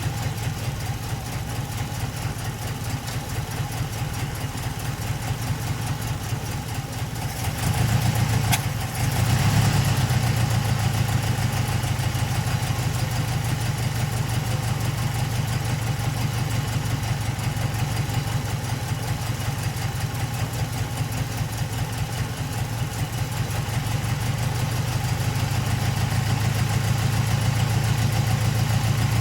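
Datsun 510 Bluebird's L16 inline-four engine on Solex carburettors running at idle with an even pulse. It surges briefly about eight seconds in, dips, then settles a little louder and grows slightly louder toward the end.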